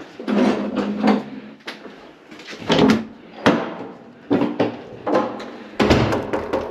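Irregular knocks and clatters of hard objects striking, about a dozen over several seconds, with a quick run of them near the end.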